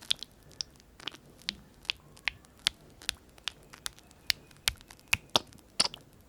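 Soap slime mixture being worked, giving sharp, sticky clicks and pops about two or three times a second.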